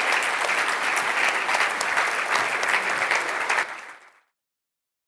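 Audience applauding, many hands clapping together; the applause fades out about four seconds in.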